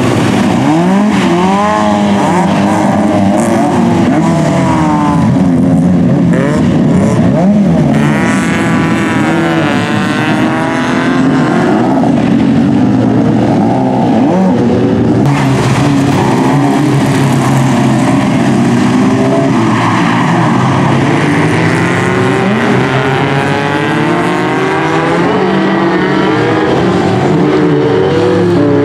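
Several jokamiehenluokka race cars running together through a corner, their engines revving up and down in overlapping rising and falling pitches. The sound changes abruptly about halfway through.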